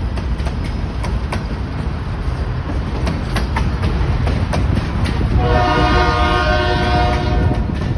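Union Pacific diesel locomotives running close by with a steady low rumble, the wheels clicking over the rail joints. About five and a half seconds in, the locomotive's air horn sounds one long chord of several notes, stopping just before the end.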